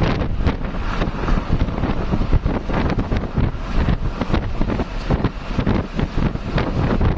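Heavy wind buffeting the microphone in irregular gusts, with a low rumble underneath.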